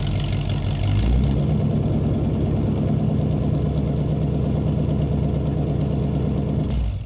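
Engine idling steadily, then fading out at the end.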